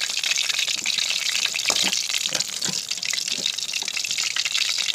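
Hot oil sizzling and crackling steadily in a frying pan as food fries.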